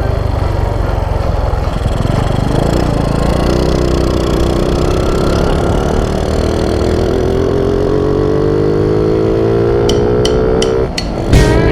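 Honda Wave 125 single-cylinder four-stroke motorcycle engine running, its pitch climbing slowly and steadily from a few seconds in, with a few sharp clicks near the end.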